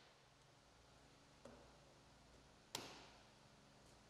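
Quarter-turn latch and plastic side panel of a Polaris Titan snowmobile clicking into place: one sharp click a little under three seconds in, with a faint tap about a second and a half in. Otherwise near silence.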